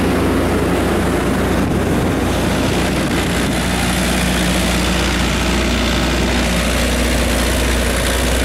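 Kubota SQ3330 diesel generator running steadily, its four-cylinder Kubota V3300 diesel holding a constant speed with the enclosure doors open.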